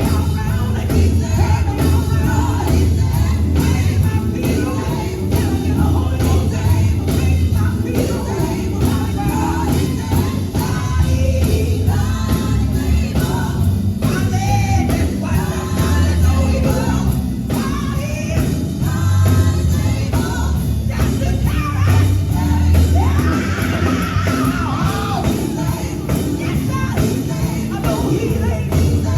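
Live gospel music: a vocal group singing over a band with a heavy bass line and a steady drum beat.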